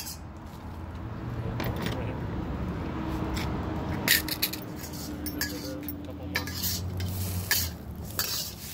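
Metal kitchenware clinking and knocking: steel plate, stainless tray, forks and the wok's spatula. Several sharp clinks, the strongest about four seconds in, over a steady low rumble.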